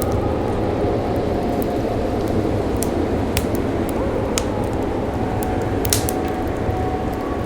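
Fireplace crackling, with scattered sharp pops and snaps and a denser burst of pops about six seconds in, over a steady low rumble of wind and distant city.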